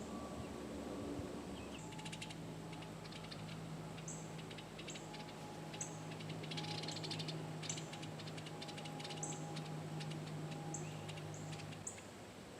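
Bluebirds chattering in short rapid clicky bursts, with high short calls repeating every second or so. A steady low hum runs under them from about two seconds in until near the end.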